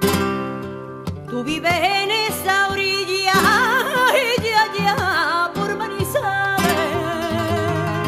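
Flamenco song: a singer holds a long, wavering, ornamented vocal line over strummed acoustic guitar, the voice coming in about a second and a half in.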